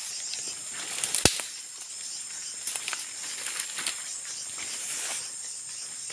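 Forest ambience: a steady high-pitched insect drone with scattered crackling and rustling of dry leaves and twigs underfoot, and one sharp snap or knock about a second in.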